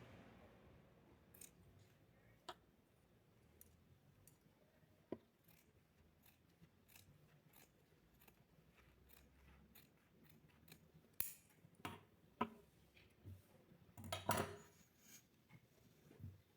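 Fabric scissors cutting through a folded sheet of felt: faint scattered snips, then a run of louder, sharper snips in the last few seconds.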